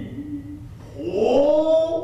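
A Noh drummer's kakegoe call: a long shout that sweeps steeply up in pitch about a second in and is held.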